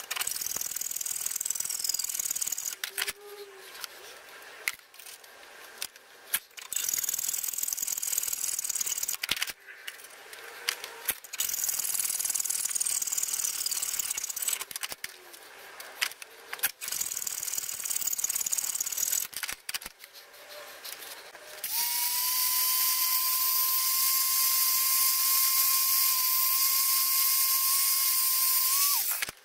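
Hand-sawing steel plate held in a vise, played back sped up so the saw strokes blur into a high-pitched hiss, broken by knocks and short pauses. For the last several seconds the hiss is steadier and louder, with a steady high whine over it.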